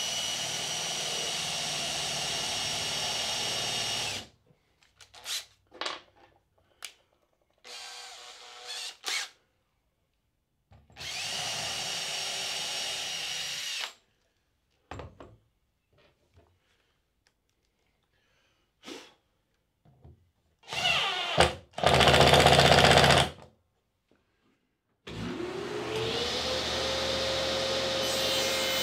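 Cordless drill driving screws into hardwood runners in several steady runs of a few seconds each, with quiet handling in between. Near the end a table saw motor starts, its whine rising and then holding steady.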